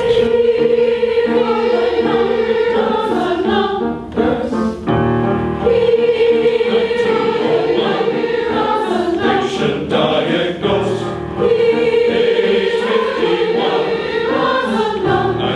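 A choir singing in long held phrases, with brief breaks between phrases about four and eleven seconds in.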